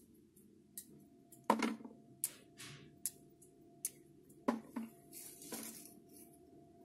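Scattered clicks and light knocks of olives and a knife being handled as olives are scored and dropped into a plastic jar, with a brief rustle of a plastic bag about five seconds in.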